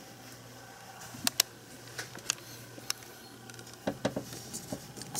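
A few scattered light clicks and taps from hands handling small metal parts and tools, with a quicker cluster of them about four seconds in.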